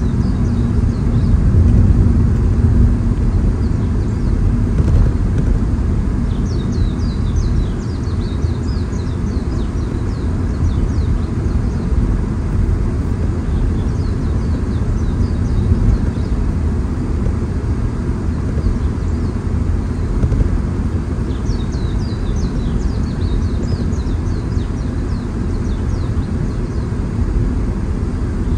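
Steady low rumble of a car driving along a road, tyre and engine noise. Groups of short high chirps come and go over it several times.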